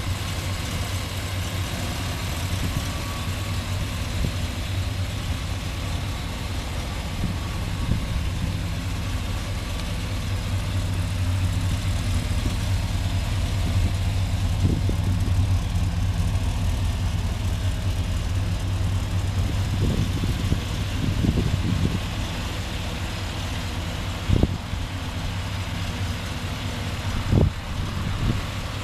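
1989 Chevrolet Silverado pickup's engine idling steadily, with a couple of short knocks near the end.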